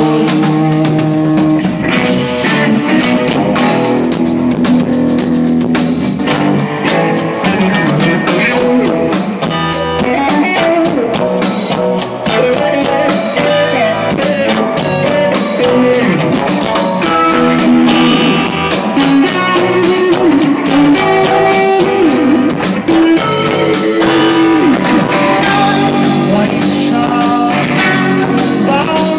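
Live rock band playing: electric guitars over a drum kit, with a guitar line bending in pitch about two-thirds of the way through.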